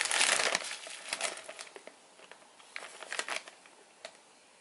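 Clear plastic bags of resin model-kit parts crinkling as they are handled, loudest in the first half-second, then in short scattered crinkles.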